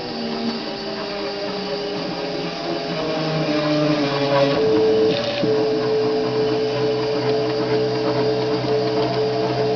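Stepper motors of a homemade CNC plotter whining as they drive a marker pen across paper. The pitch shifts in steps as the pen changes speed and direction, settling into one long steady tone about halfway through.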